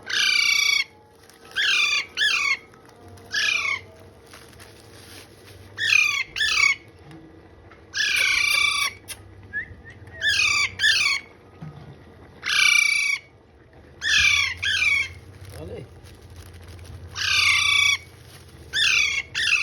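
A parrot calling over and over: loud calls that slide down in pitch, singly or in quick pairs, one every second or two.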